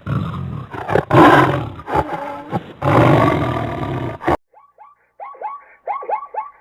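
A wild animal, roaring in about three long, rough roars that cut off suddenly. A different animal then follows with a quicker run of short yelping calls, several a second.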